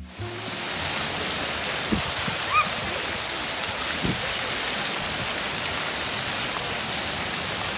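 Splash pad fountain jets spraying up from the ground and splashing onto wet concrete, a steady rushing of water. A brief faint high call cuts through it a few seconds in.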